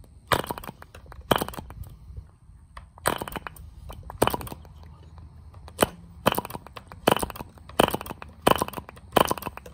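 Yin Yan 2.47 cc model diesel engine being hand-flicked by its propeller to start it: about a dozen sharp cracks, some clustered into short runs of pops, coming faster toward the end.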